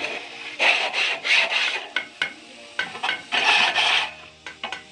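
A series of rough, rasping scraping strokes from hand work on a building site, each a fraction of a second long and coming in irregular runs, with a longer stroke near the end.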